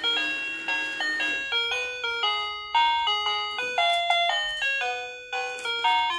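Magibx toy ATM piggy bank playing its electronic jingle, a chiming tune of quick bell-like notes, each struck and fading, while dollar bills are fed into its slot.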